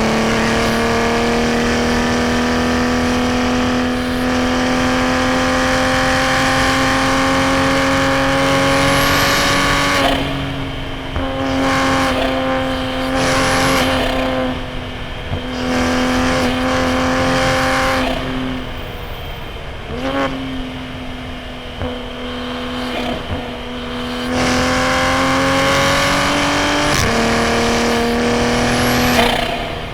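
Toyota A90 Supra's turbocharged B58 inline-six through a straight-piped titanium single-exit exhaust, pulling through the revs under load in long climbs. The engine note breaks and drops about a third and two-thirds of the way through as the driver lifts or shifts, then climbs again, with a sharp spike just before the end.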